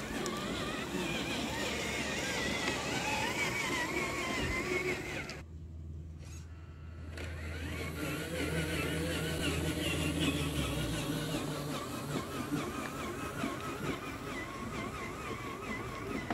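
Homemade 1/8-scale RC truck's drive motor and gearbox whining as it drives over dirt and gravel, the pitch wavering up and down with the throttle. About five seconds in the whine drops away for a couple of seconds, leaving only a low hum, then comes back.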